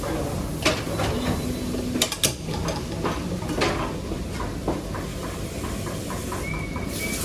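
Busy commercial kitchen during service: a steady rumble and hiss with scattered clicks and knocks of utensils and pans. A thin, steady high tone comes in near the end.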